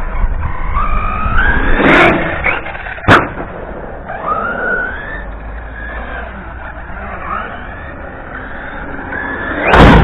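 RC monster truck's motor whining up and down in pitch as the throttle is worked, with a sharp knock about three seconds in and another loud knock near the end as the truck hits the ramps. A low rumble of wind on the microphone runs underneath.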